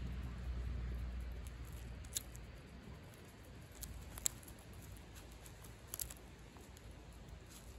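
Striped skunk eating peanuts and seeds from a plate: a few sharp, crisp crunching clicks a second or two apart as it bites and roots through the nuts. A low rumble fades out over the first few seconds.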